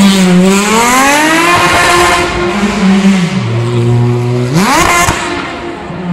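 Renault Mégane's engine revving hard and falling back during a tyre-smoking drift, with tyre noise throughout. About three seconds in the revs drop low and steady, then climb sharply again just before the end.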